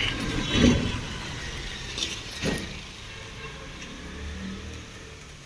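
A low motor rumble that fades away over a few seconds, with a sharp knock just under a second in and a couple of short noisy strokes about two seconds in.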